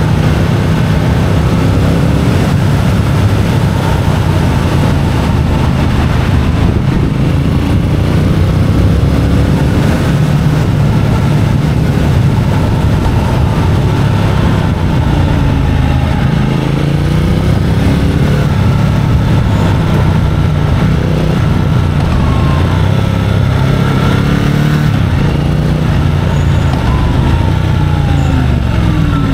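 Triumph Speed Twin 1200's parallel-twin engine running under way, its pitch rising and falling several times as the bike accelerates and slows, with a steady rush of wind noise.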